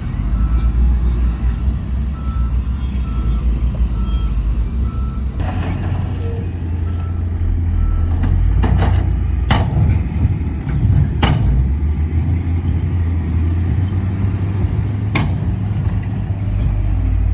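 Heavy diesel machinery running with a steady low rumble, and a reversing alarm beeping at an even pace for about the first half. From the middle on, the engine gets louder and several sharp knocks come through.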